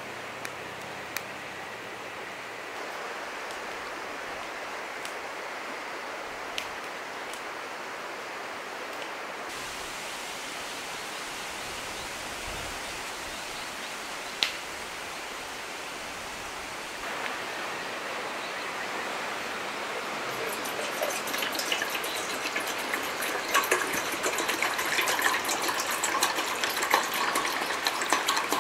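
A steady rush of flowing river water, with a few isolated clicks. Over the last several seconds it gives way to a louder, uneven crackling and splashing full of sharp clicks, ending with water pouring from a plastic bottle into a metal pot.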